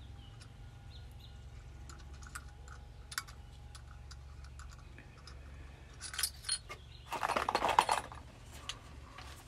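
Small clicks and clinks of a Dremel rotary tool and its plastic tungsten-grinder attachment being handled and worked loose, with a dense rattling, crunching scrape about seven seconds in. A low steady hum runs underneath.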